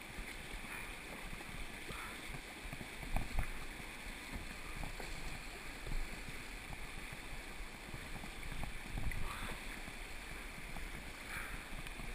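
Rushing whitewater around a kayak running a river rapid, with paddle splashes and a few louder low thumps about 3, 6 and 9 seconds in.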